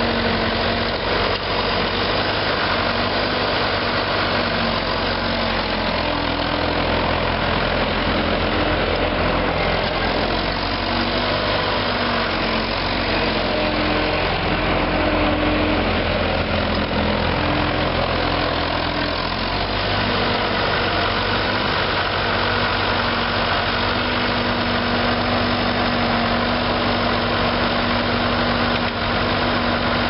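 A 1999 ASV HD4520 skid steer's four-cylinder diesel engine running steadily while the rubber-tracked machine drives, turns and works its loader arms.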